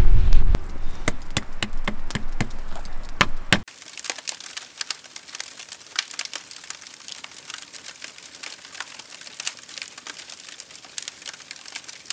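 Wood fire crackling and popping: a run of louder pops in the first few seconds, then, after a sudden drop, a quieter, steady crackle of small snaps.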